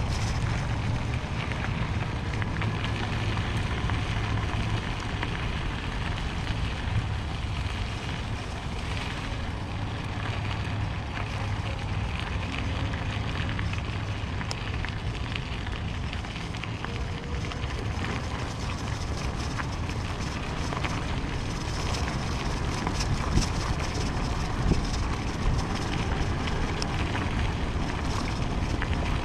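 Wind buffeting the microphone of a bike-mounted camera, with the bike's tyres crackling over a gravel road. The crackle grows busier near the end.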